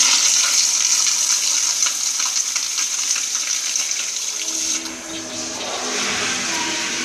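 Kohler commercial toilet flushing: a loud rush of water into the bowl that eases off about five seconds in, then carries on more quietly.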